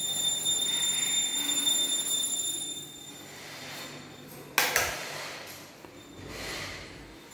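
Two sharp clicks in quick succession about four and a half seconds in, a wall light switch being flipped as the room lights come on. Before them there is a steady rustle with a faint high whine.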